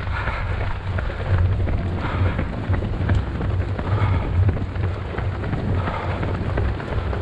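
Wind buffeting the microphone of a camera carried by a runner, a steady low rumble, with a soft rhythmic pulse about once a second on top.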